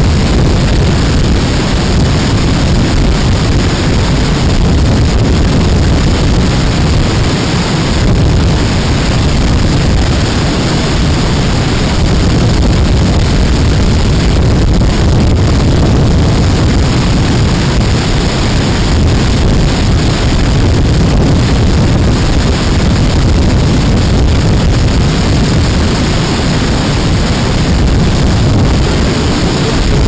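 Girlevik waterfall's cascades pouring over the rocks close by: a loud, steady rush of falling water, heaviest in the low rumble.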